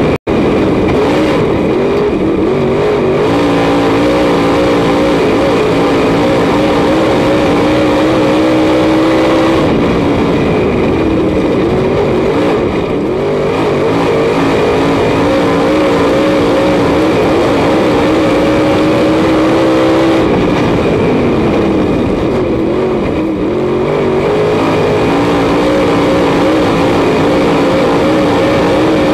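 Dirt late model's V8 racing engine heard from inside the cockpit at racing speed. It holds high revs for long stretches, and about every ten seconds the pitch falls and wavers, then climbs back as the driver lifts off the throttle for the turns and gets back on it.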